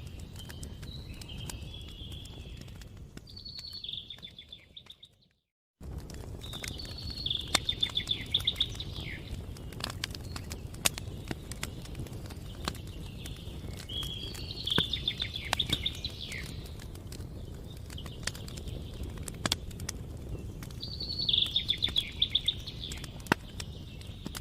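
Campfire crackling with frequent sharp pops over a low, steady rumble, while a songbird repeats a short trilled phrase about every seven seconds. The sound cuts out briefly about five seconds in.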